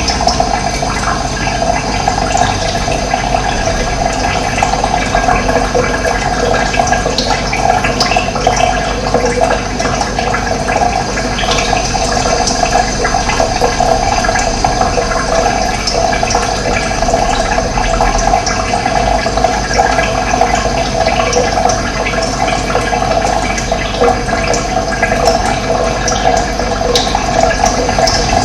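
Running water flowing steadily, an even rush with no breaks.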